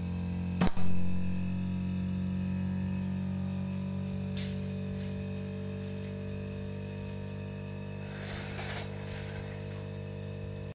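OCA vacuum laminating and bubble-removing machine running, a steady hum of several pitches from its pump and motor. A sharp click comes just under a second in, and a short hiss of air near the end.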